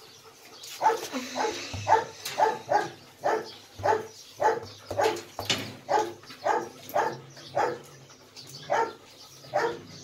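A dog barking over and over, about two to three barks a second, with a short pause near the end.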